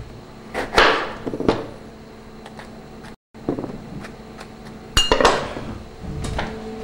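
Kitchen clatter of utensils and pans knocking, then a chef's knife chopping through a lemon onto a cutting board with a few sharp knocks about five seconds in, over a faint steady hum.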